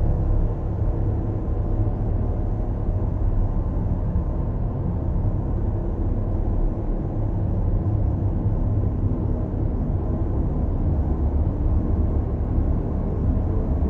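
Dark ambient drone music: a steady, dense low rumble that stays even throughout, with no beat or melody.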